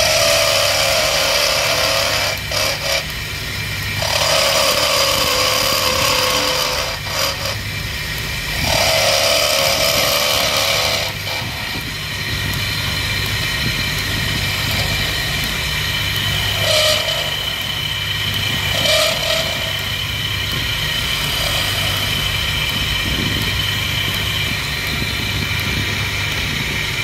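Motor-driven wood lathe running with a steady hum while a hand-held chisel cuts into a spinning wooden spindle, giving three loud scraping cuts of a few seconds each in the first eleven seconds. After that the lathe keeps running with only lighter contact sounds.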